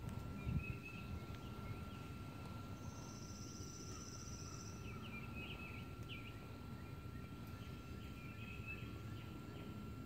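Small birds in the tree canopy giving short scattered chirps, with a rapid high trill lasting about two seconds from about three seconds in. A faint steady high tone runs underneath, over a low rumble, with a brief thump just after the start.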